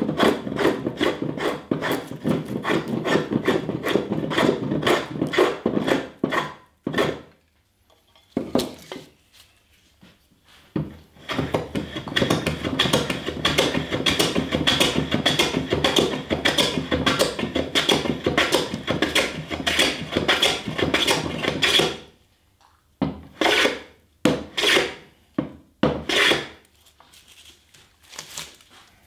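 A hand plane cutting across a partially air-dried Atlantic cedar board in quick, short strokes, scraping off shavings to bring the board down to thickness. A dense run of strokes stops about seven seconds in. After a few scattered strokes, a second long run follows, then a handful of separate strokes near the end.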